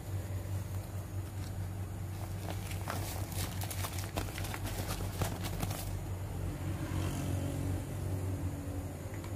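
Thin clear plastic bag crinkling and crackling as a toy plastic elephant is pulled out of it, for about three seconds in the middle, over a steady low hum.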